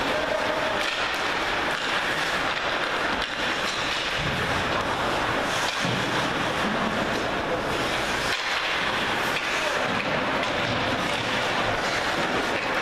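Ice hockey rink ambience during play: a steady noise of the game and arena, with faint voices and a few short sharp knocks such as sticks and puck on the ice.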